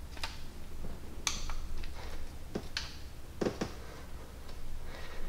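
A few scattered light clicks and taps of metal hand tools being handled over an engine, spaced irregularly about a second apart, over a faint steady low hum.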